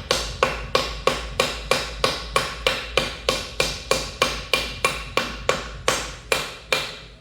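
Hammer blows in a steady rapid series, about three a second, each strike ringing like metal and slowing slightly near the end: pounding to drive a worn differential out of a Tesla Model 3 front drive unit.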